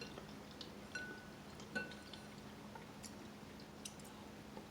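Eating soup: a spoon clinks lightly against the bowl twice, each clink ringing briefly, among faint scattered eating clicks.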